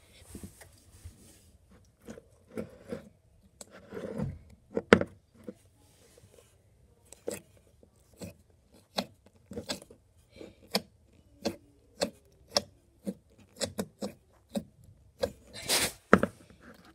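Bubble-filled slime being squeezed and worked in a plastic cup, giving a string of short, sharp pops and clicks, about one or two a second, with a denser cluster near the end.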